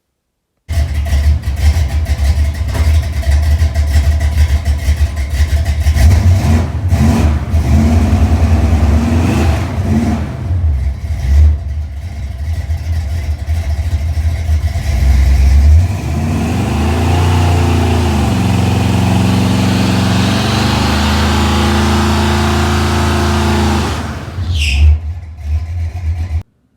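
1968 Pontiac Firebird engine revved hard for a burnout, the front brakes held by a line lock while the rear tyres spin. Revs rise and fall, then climb about halfway through and hold high for several seconds with a rushing hiss, before dropping near the end.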